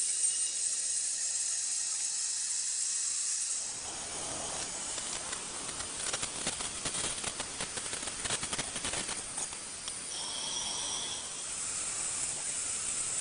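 Vertical bandsaw running with a steady high hiss. From about four seconds in until about nine and a half seconds, the blade cuts through sheet metal with a coarser, fuller rasp full of rapid ticks, and then the plain running hiss returns.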